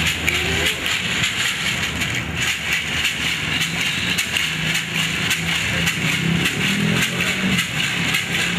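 Gourd rattle (maraca) shaken fast and continuously, a dense run of dry clicks, over a low steady hum.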